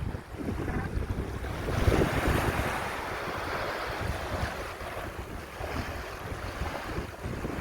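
Ocean surf washing in, with wind buffeting the microphone as low rumbles; a wave swells loudest about two seconds in.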